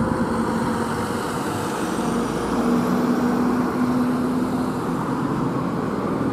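Steady road traffic noise: engines and tyres of passing vehicles, with an even drone throughout.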